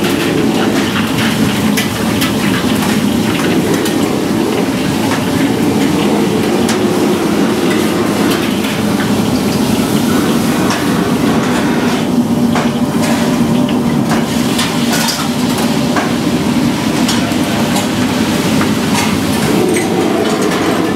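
Busy commercial Chinese kitchen: the wok range roars steadily and low, with many scattered clinks and clatters of metal ladles, woks and bowls.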